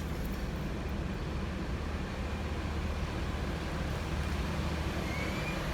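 Bus engine running, a steady low hum with road noise.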